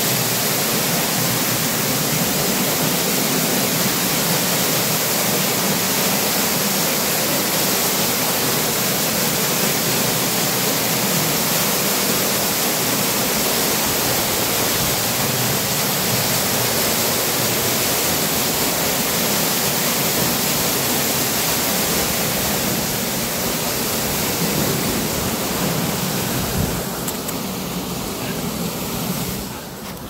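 Waterfall pouring and splashing down onto rock and into its pool: a steady, even rush of water that eases a little in the last few seconds.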